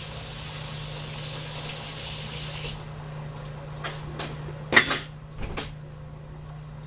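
Kitchen sounds: a steady hiss for about three seconds, then a few short clicks and knocks of kitchenware, one sharp clack the loudest, over a steady low hum.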